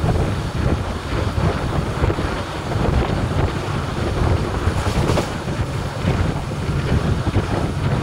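Wind buffeting the microphone over the steady rumble of a passenger train's coach running at speed on the track, heard from an open coach door.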